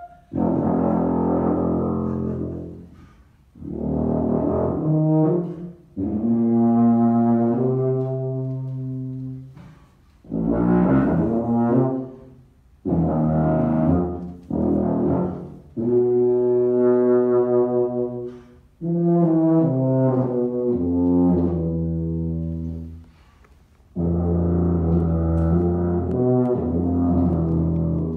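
Solo tuba improvising: a series of phrases of low held and stepping notes, each a few seconds long, separated by short pauses.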